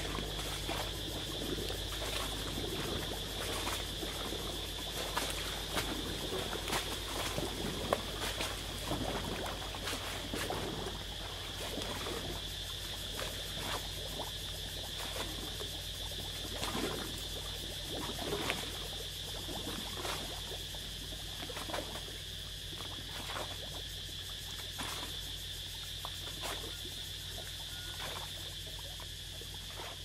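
Tropical wetland night chorus: a steady high-pitched insect drone, with frogs giving many short, irregular calls over it.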